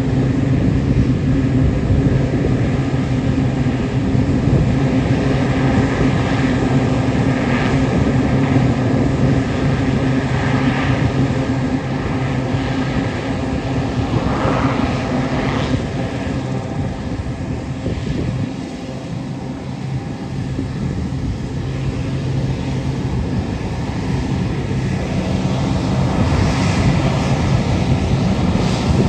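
C-130 Hercules turboprop taxiing, its four engines and propellers running in a steady low drone with a constant hum. Brief swells of rushing noise come several times in the first half, the sound dips a little past the middle and grows again near the end.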